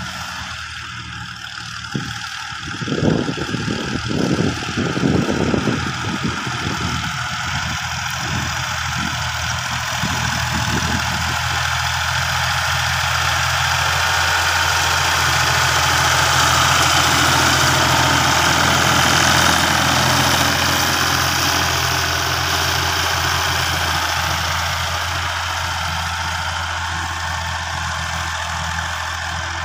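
A Fiat 480 tractor's three-cylinder diesel engine runs steadily under load, pulling a cultivator through the soil. It grows louder as the tractor draws close in the middle, then fades a little as it moves away.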